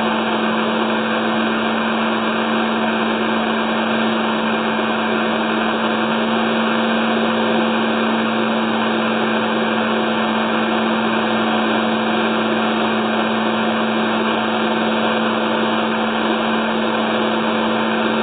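Countertop blender running steadily at one speed, a hand holding its lid down while it blends a red mixture: an even, unbroken motor hum under the whir of the blades.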